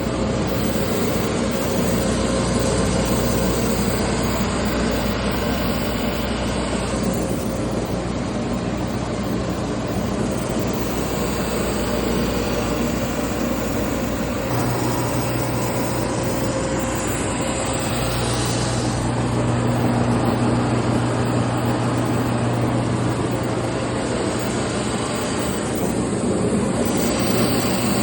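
Grizzly G1066Z drum sander running steadily under load as a hardwood slab feeds through, a constant motor hum under dense sanding noise that swells slightly a few times.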